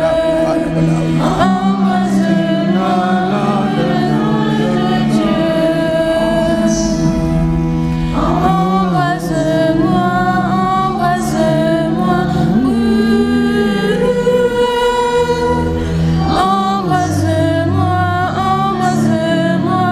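A group singing a slow worship chant in chorus with musical accompaniment, the invocation to the Holy Spirit repeated over sustained low notes.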